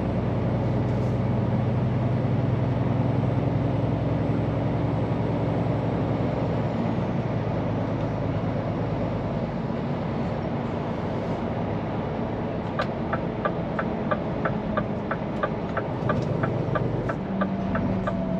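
Scania P410 truck's diesel engine running steadily under way, heard from the cab, its low drone easing off about seven seconds in. From about thirteen seconds a regular ticking, about three a second, sounds over the engine.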